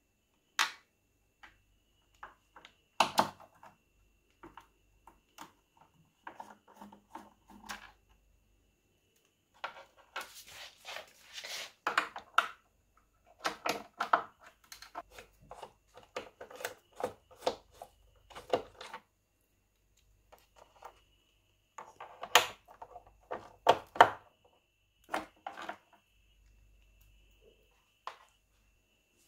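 Hand work on an electric scooter's battery compartment: scattered sharp clicks, taps and rattles of hard plastic and small metal parts, coming in clusters, as a cable connector is pried loose and the battery pack's corner screws are undone with a hand screwdriver.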